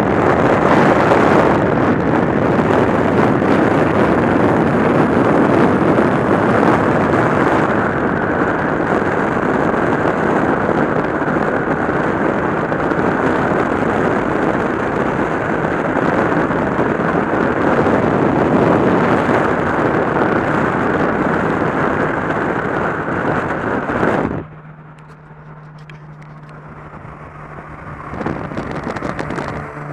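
Car driving at motorway speed, heard from a camera mounted outside the body: steady wind rush over the microphone mixed with road and engine noise. About 24 seconds in it drops suddenly to a much quieter, steady engine hum, which grows louder again near the end.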